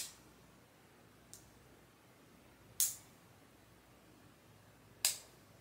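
Switch of a GMCONN 1200-lumen pistol light clicked three times, about two and a half seconds apart, with a fainter click between the first two.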